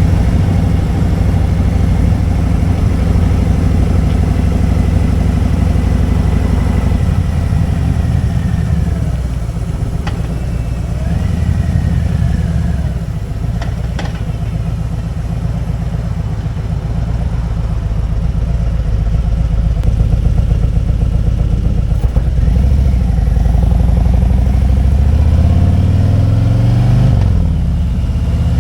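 Motorcycle engine running under way. Its pitch climbs steadily near the end as it accelerates, then drops.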